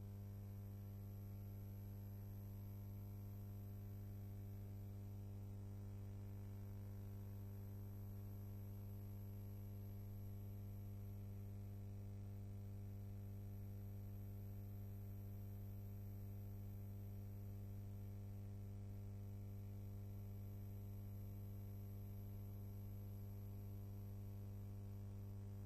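Steady low electrical mains hum with faint hiss, and no other sound.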